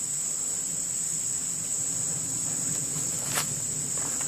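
Steady high-pitched insect chorus in summer woodland, with a single sharp click about three and a half seconds in.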